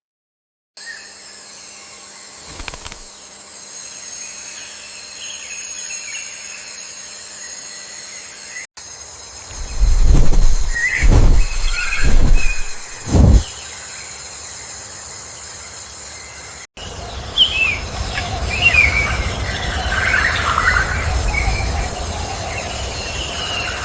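Rainforest ambience: a steady high insect drone with scattered bird chirps, broken about ten seconds in by four loud low thumps. Busier bird chirping over a low rumble follows near the end.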